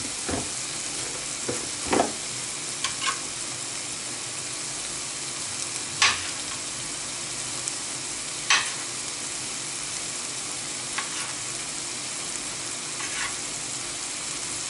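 Sliced sucuk frying in butter in a pan, sizzling steadily, with a few short knocks of a utensil against the pan every few seconds as it is stirred.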